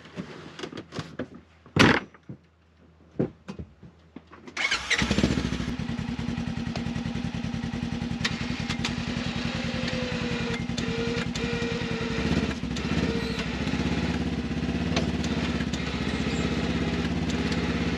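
A few knocks and clunks, then about four and a half seconds in a Polaris General side-by-side's twin-cylinder engine starts and settles into a steady idle.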